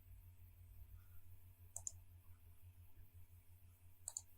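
Near silence with two faint pairs of computer mouse clicks, one pair a little under two seconds in and the other near the end.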